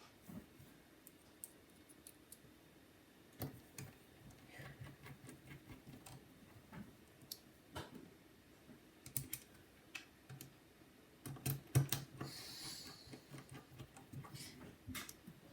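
Faint, scattered small clicks and ticks of a precision screwdriver driving hinge screws into a plastic MacBook's case, with a short scratchy rustle about three-quarters of the way through.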